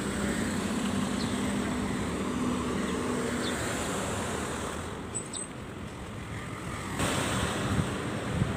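City street traffic noise, with a steady low hum for the first three and a half seconds.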